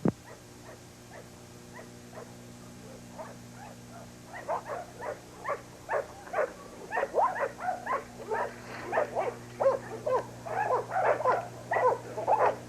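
American bulldog making short, repeated whining cries while holding its bite, starting about four seconds in and growing louder and more frequent toward the end, over a steady low electrical hum.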